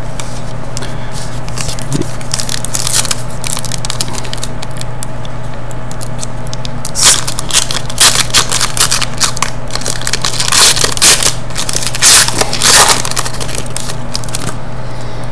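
Foil trading-card pack wrapper crinkling and tearing as it is opened by hand, loudest in crackling bursts from about seven to thirteen seconds in, with fainter rustling of the packs before that. A steady low hum runs underneath.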